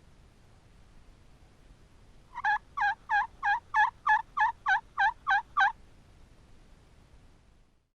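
Homemade wooden turkey box call run through a series of about eleven even yelps, roughly three a second, loud and close.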